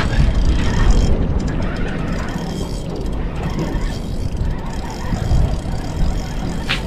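Spinning reel being wound, its gears and handle whirring as the line comes in, over a steady low rumble. A short sharp click near the end.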